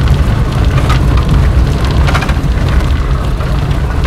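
Loud wind buffeting and road rumble on the microphone of a camera riding in a moving vehicle, a dense low rumble with no distinct events.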